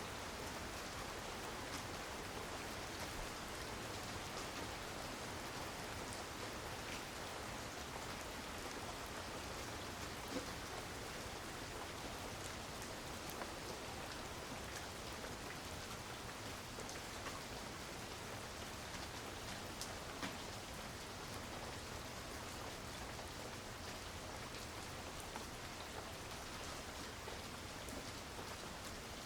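Heavy rain falling steadily, a dense even hiss with scattered sharper drop taps on surfaces.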